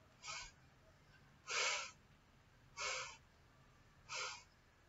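Four short, forceful exhalations through the nose, about one every 1.3 seconds: kapalbhati breathing strokes, done as exhalation only with the belly held still.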